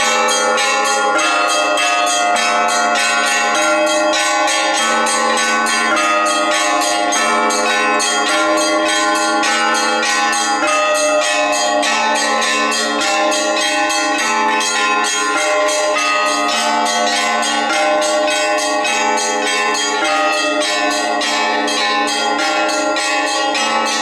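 Orthodox church bells ringing a peal: several bells of different pitches struck in a quick, unbroken rhythm, their tones overlapping and ringing on.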